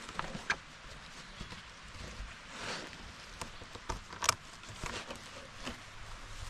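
Scattered light clicks and knocks with some rustling, the sharpest knock a little past four seconds in.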